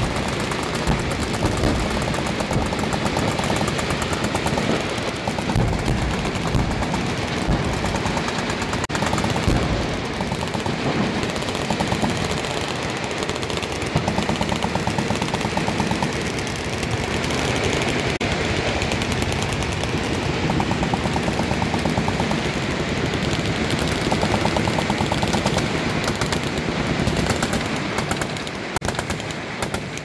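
Massed machine-gun fire: many automatic weapons firing at once in a dense, unbroken roll of overlapping shots.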